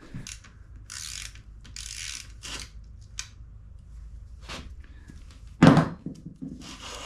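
Hand work on a bike in a workshop: short scraping and rustling sounds and sharp clicks of tools or parts being handled, with one louder knock about two-thirds of the way through.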